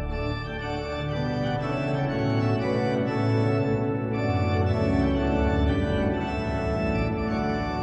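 Organ music: full sustained chords changing every second or two, with a deep bass note coming in about five seconds in.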